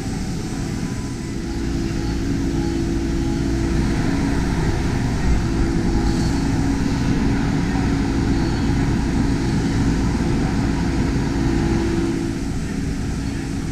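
CNC milling machine cutting a wheel-shaped part under flood coolant, heard through its enclosure: a steady machining drone with two held tones, a little louder from about two seconds in.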